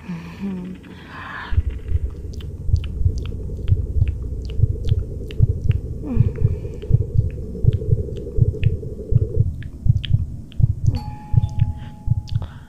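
Heartbeat sound effect, a steady low thumping at about two beats a second, with wet mouth clicks of blood-drinking over it: the victim's heart as they are drained.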